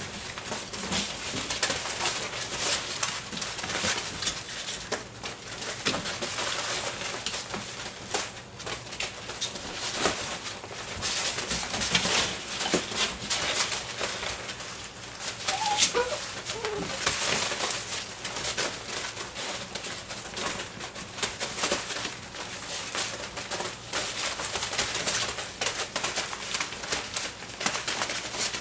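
A litter of young Doberman puppies scrambling and pouncing over wood-shavings bedding: constant rustling and scratching of shavings and claws, with low play growls and a short high yip about sixteen seconds in.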